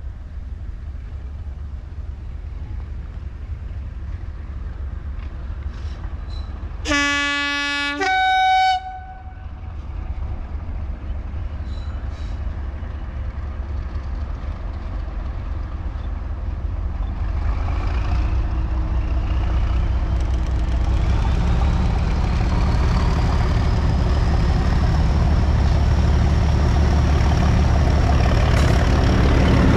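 Class 37 diesel locomotive, 37714, approaching: its two-tone horn sounds once about seven seconds in, a lower note then a higher one, for about two seconds. From the middle on, its English Electric engine grows steadily louder as it nears, with a whistle rising in pitch over a low rumble.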